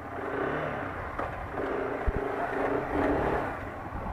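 Motorcycle engine running at a low idle, with a single sharp knock about two seconds in.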